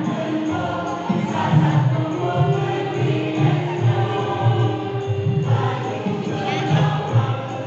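A choir singing together in held, shifting chords over accompaniment with a steady low beat.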